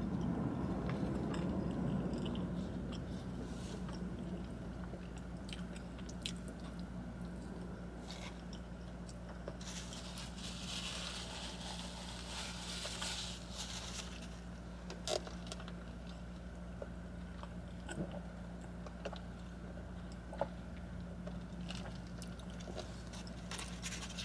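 Close-up chewing and biting as the last bites of an In-N-Out burger are eaten, with small wet mouth clicks over a steady low hum. A brief rustle comes about ten seconds in.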